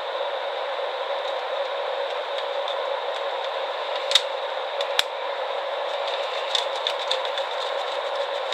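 Small clicks and ticks of a wire being fitted and fastened into a circuit breaker terminal: two sharp clicks about four and five seconds in, then a flurry of light ticks, over a steady background hiss.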